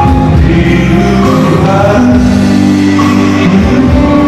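A man singing into a handheld microphone over a music backing, with long held notes.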